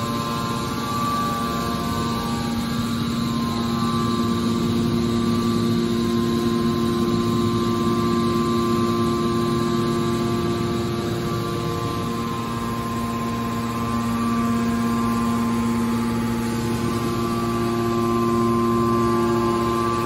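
Hydraulic power unit of a horizontal scrap steel baler, an electric motor driving the hydraulic pump, running with a steady hum and whine. The whine weakens for several seconds in the middle and then comes back.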